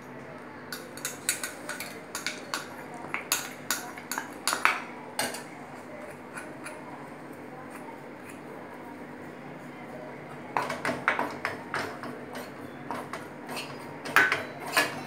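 A steel spoon scraping and clinking against a metal kadai while stirring rice flour roasting in ghee. There are two spells of quick, irregular clinks, the first near the start and the second in the last few seconds, with quieter stirring between.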